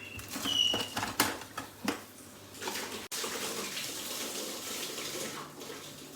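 Running water with a few sharp knocks and clinks of kitchenware.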